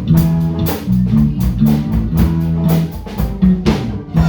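Live band jamming: guitar, bass guitar and drum kit playing together to a steady beat.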